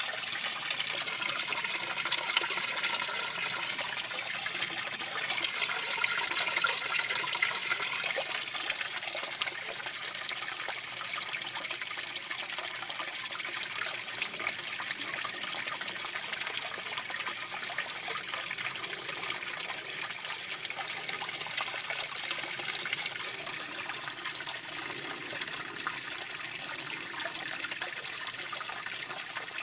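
Water trickling and splashing steadily in an aquaponics fish tank, a little louder for the first eight or nine seconds.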